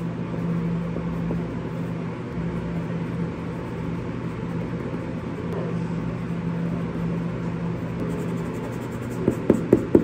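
A steady low hum under soft background music, with a quick run of sharp taps near the end.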